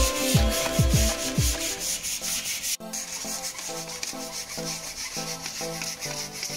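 Wood being hand-sanded with sanding blocks in rapid back-and-forth rasping strokes. Music with a thumping beat plays over the first second or so, and the sound changes abruptly about three seconds in, where the sanding goes on more quietly.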